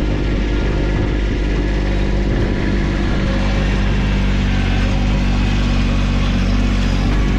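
An engine running steadily at a constant speed, loud and close, with no change in pitch.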